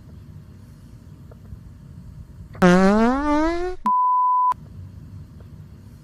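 Low rumbling background noise, then, about two and a half seconds in, a loud rising buzzy tone with many overtones for about a second. It cuts straight into a steady high test-tone beep of about half a second, a TV 'please stand by' tone edited into a YouTube Poop.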